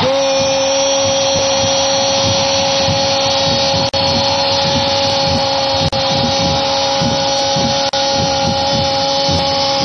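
A football commentator's long goal cry, a single "Goool!" held at one high, steady pitch for nearly ten seconds. It celebrates a goal just scored.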